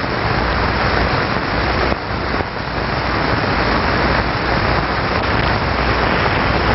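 Steady rushing of water driven by a flow-demonstration machine, with a low motor hum underneath.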